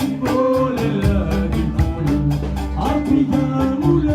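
Gnawa music: a deep plucked bass line under singing, with metal castanets clattering in a steady rhythm of about four strokes a second.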